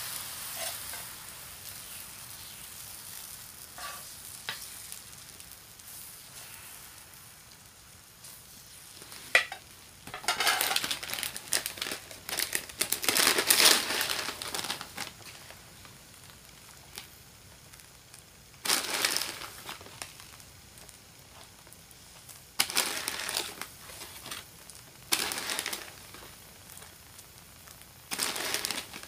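Takoyaki batter sizzling faintly on the hot plate of a Nichinen takoyaki maker. Several bursts of crinkly rustling come as tempura bits are scattered over the batter, the longest about ten to fifteen seconds in.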